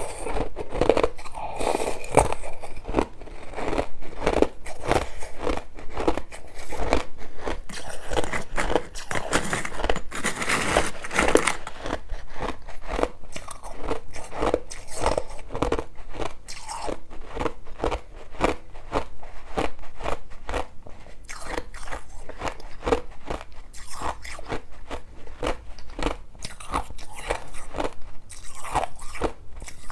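A person biting and chewing crushed ice close to the microphone: a steady run of sharp, crisp crunches, several a second.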